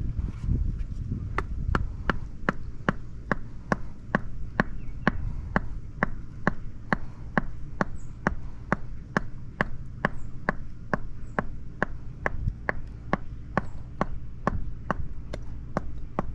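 Rubber mallet tapping a concrete paver again and again, seating it sideways into thin-set on a vertical footer face. The sharp knocks start about a second in and run at about three a second in a steady rhythm.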